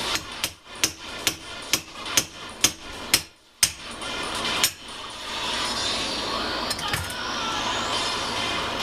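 Hammer blows on metal, about two a second, eight in a row, then one more after a short pause: knocking loose a part of a hedge trimmer that is rusted in place.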